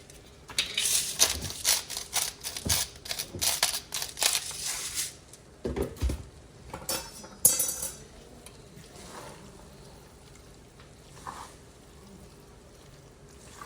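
A utensil clinking and scraping against a pan as pasta is stirred, in a busy run of clicks and knocks through the first half and only a few scattered ones later.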